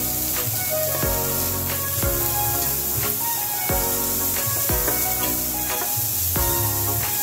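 Onions and ginger sizzling in oil in a stainless steel pot while they are stirred, under background music with a steady beat.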